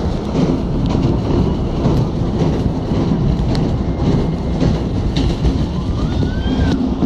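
Passenger train running at speed, heard from on board: a steady rumble and rush of noise with scattered clicks of the wheels over the rails, and a faint short rising squeal about six seconds in.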